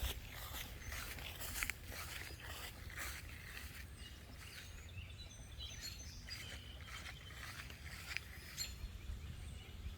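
Faint outdoor ambience: rustling steps through long grass over a steady low rumble, with a few faint bird chirps about halfway through.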